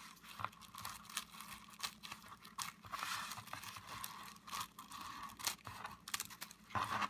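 Scissors cutting through plastic bubble wrap: an uneven string of sharp snips and crackles amid the crinkling of the plastic film.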